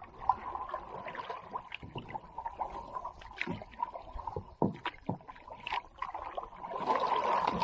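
Gear knocking against an aluminium-trimmed canoe's hull as it is loaded at the water's edge, with small waves lapping at the shore and the boats. Scattered short knocks and clicks, and a louder rush of noise about seven seconds in.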